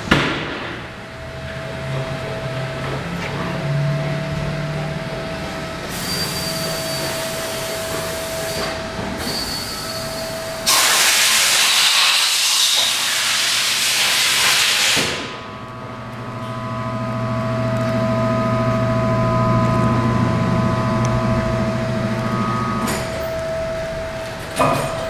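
Honda VFR800 Interceptor V4 engine idling steadily through an Arrow slip-on exhaust, with a constant whine over the low idle hum. A loud hiss covers it for about four seconds in the middle, and there is a short click near the end.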